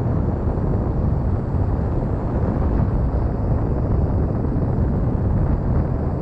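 Steady wind buffeting on the microphone mixed with tyre and road rumble, moving over asphalt at about 37–38 km/h.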